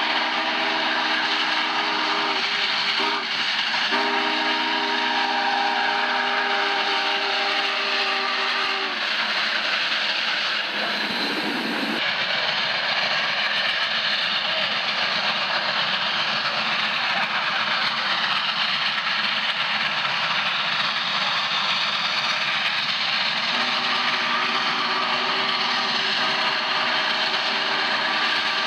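Union Pacific 3985, a 4-6-6-4 Challenger steam locomotive, sounding its chime whistle in a long held chord of several tones as it passes. The whistle stops about nine seconds in, leaving the steady rush of the running locomotive, and sounds again near the end.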